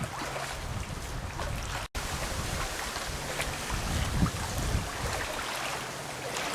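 Wind buffeting the microphone outdoors: an uneven, gusty low rumble over a steady rushing hiss. The sound cuts out for an instant about two seconds in.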